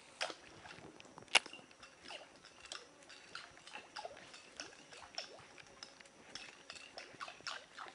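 Faint, irregular small splashes and clicks as an artificial surface lure is twitched across the water, with one sharper click about a second and a half in.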